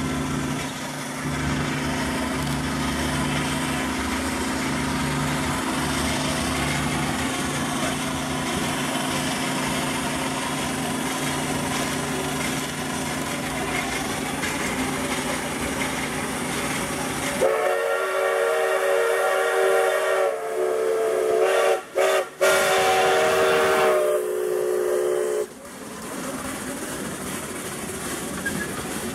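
A steady mechanical hum, then the steam whistle of a small Shay-type geared steam locomotive blowing one long blast of several notes at once, cut off twice very briefly in the middle. The whistle is followed by the rumble of the train's cars rolling past on the rails.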